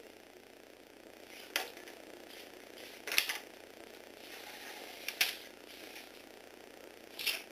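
Motorised Lego Technic robot's gears and mechanism whirring steadily, with four sharp clacks of plastic parts knocking, about two seconds apart.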